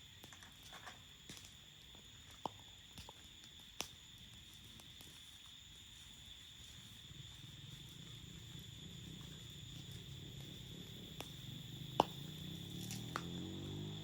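Crickets chirring in a steady high trill, with a few sharp crackles and pops from a wood campfire, the loudest about twelve seconds in. A low hum slowly builds toward the end.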